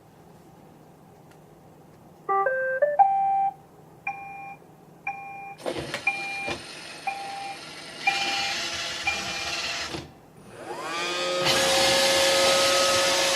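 iRobot Roomba 620 robot vacuum chirping a short tune of beeps that jump up and down in pitch, then beeping about once a second. Its vacuum motor and brushes then whine up in pitch to speed and run steadily.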